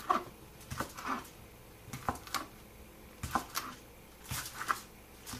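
Knife cutting a pineapple sausage into pieces: a series of short knocks, mostly in pairs, about one pair a second.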